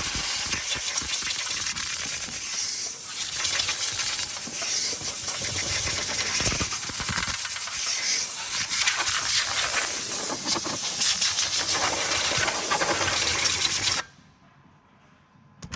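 Loud steady hissing noise that cuts off suddenly near the end.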